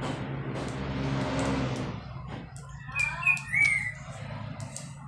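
A passing vehicle: its noise swells over the first two seconds and drops away, over a steady low hum. About three seconds in come two short, high calls that rise and fall in pitch, the loudest sounds here. Sharp snaps of yard-long beans broken by hand into a metal bowl come now and then throughout.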